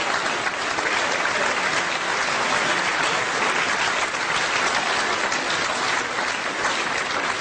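Audience applauding: many hands clapping at once in a dense, even applause.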